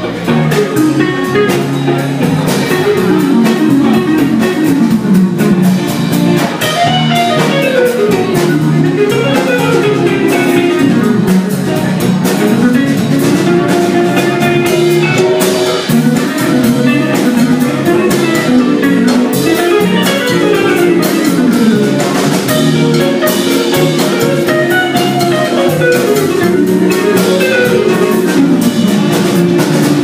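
A live soul band playing a song, with a drum kit keeping a steady beat under the other instruments.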